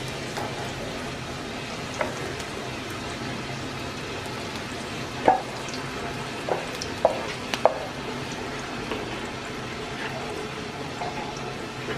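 Oil sizzling in a non-stick frying pan while diced vegetables are stirred and scraped with a wooden spatula. Several short knocks of the spatula against the pan, the loudest about five seconds in and a quick cluster shortly after.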